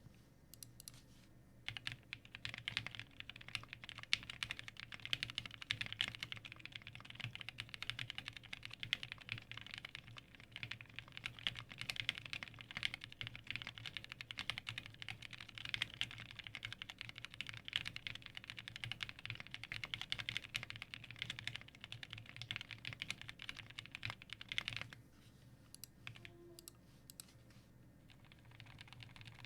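Fast, continuous typing on a plateless IDB60 custom mechanical keyboard with lubed and filmed vintage Cherry MX Black linear switches, UHMWPE stems and doubleshot Cherry keycaps. A few single keystrokes come first, steady typing runs from about two seconds in, then stops about five seconds before the end, leaving a few scattered key presses.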